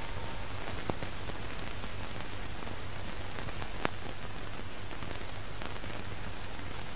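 Steady hiss with a low hum underneath, broken by two single clicks, one about a second in and one about four seconds in.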